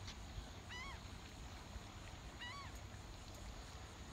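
A bird calling twice, about a second in and again past the middle: short, honking calls that rise and then fall in pitch, over a low steady rumble.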